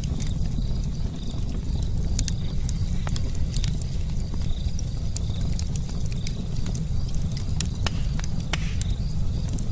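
Fire burning: a steady low rumble with many scattered sharp crackles and pops.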